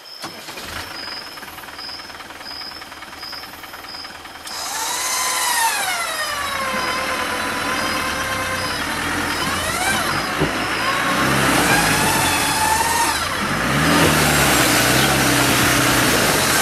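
Warn Endurance 12 XP electric winch hauling a Land Rover 4WD up a muddy slope, its motor whine gliding down and up in pitch as the load changes. From about halfway the vehicle's engine revs up and down beneath it. A faint high pulsing chirp sounds in the first four seconds.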